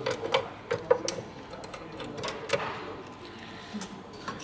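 Irregular sharp clicks and taps of a stack of scratch cards and hands knocking against the stainless-steel guides and hopper of a friction feeder as it is adjusted and loaded. The clicks come thick in the first second and then thin out to a few.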